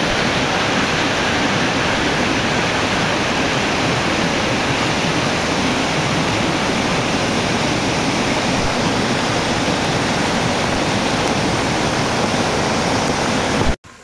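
Swollen monsoon stream rushing white over boulders, a loud steady rush of water that cuts off abruptly near the end.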